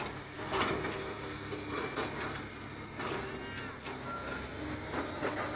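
Excavator's diesel engine running steadily, with short noisy bursts every second or so and a brief high squeal about three seconds in as the machine works.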